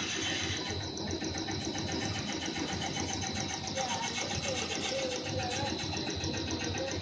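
Pasta and fried-snack production machinery running, its electric motors and gear drives giving a steady drone with a fast, even ticking and a steady high whine.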